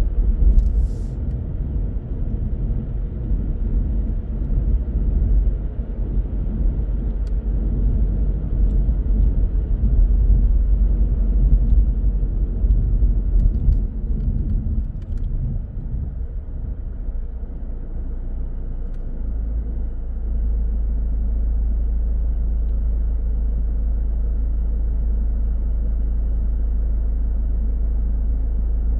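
Car driving on city roads: a low, uneven tyre and engine rumble, with a short tick about a second in. About two-thirds of the way through it settles into a steady low hum.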